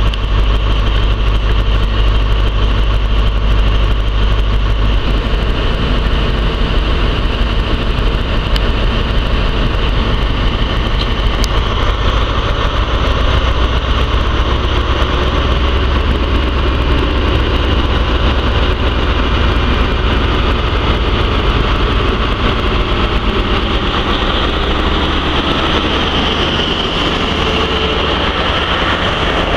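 Class 43 HST power car's MTU V16 diesel engine running steadily at the platform, its deep hum changing about five seconds in and the sound swelling in the second half as the train moves off, the power car passing close by near the end.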